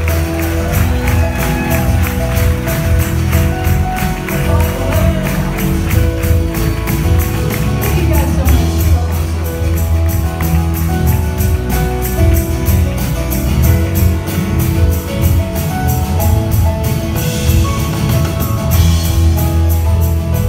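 Live band playing a song: strummed acoustic guitars and keyboards over a heavy low end, with a steady high percussion tick about four times a second.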